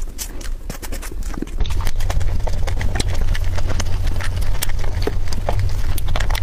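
Close-miked mouth sounds of someone eating soft mousse cake: a quick run of wet smacks and clicks. A steady low hum comes in about a second and a half in.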